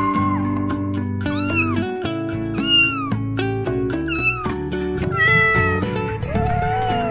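Cat meowing over background music: three short meows that rise and fall, about a second and a half apart, then longer, softer calls near the end, with sustained music chords underneath.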